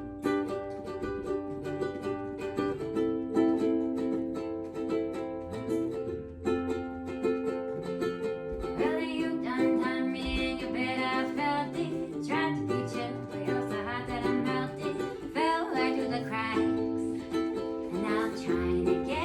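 An acoustic string instrument strummed in steady chords, with a voice singing a melody over it from about eight and a half seconds in.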